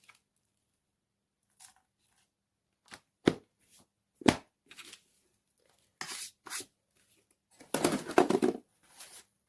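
Plastic knocks and a short clatter from handling the robot vacuum's removable 2-in-1 dust and water box: a few separate sharp knocks, two short scrapes, then about a second of rattling near the end.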